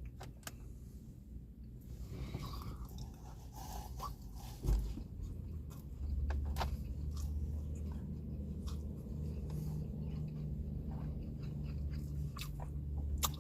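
A person chewing and eating sliced deli roast beef close to the microphone, with short wet mouth clicks. There is one louder thump about five seconds in. From about six seconds a low steady hum runs underneath.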